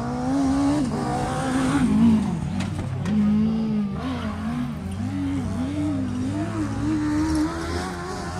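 Suzuki Vitara 1.6's four-cylinder petrol engine revving up and down as the SUV pulls through mud. Its pitch rises and falls over and over, with a quick series of swells in the second half.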